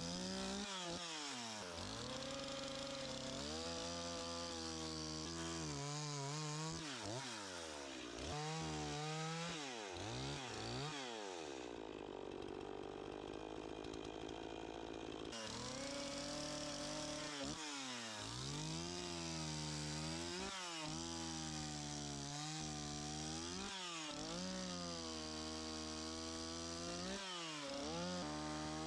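Echo 501P two-stroke chainsaw with a narrow curved carving bar, revving up and dropping back over and over as it cuts into a wood carving. From about twelve to fifteen seconds in it holds a steadier note.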